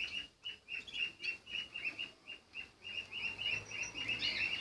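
Cage birds chirping, a quick steady run of short high chirps, about three or four a second, growing a little busier near the end.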